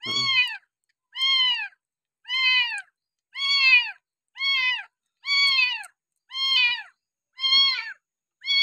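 A very young kitten mewing over and over while being bottle-fed milk. It gives about nine high, short cries, each rising then falling in pitch, evenly spaced at roughly one a second.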